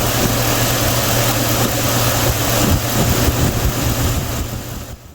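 Chevy Silverado 5.3-litre V8 idling steadily with a steady hiss over it, while an induction cleaner is fed in through the throttle body. The sound fades away near the end.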